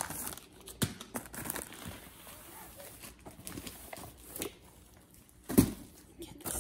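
Cardboard box and paper packaging rustling and crinkling as a diamond painting kit is unpacked by hand, with scattered light scrapes and clicks. Near the end comes one brief thump as the rolled canvas is set down on the carpet.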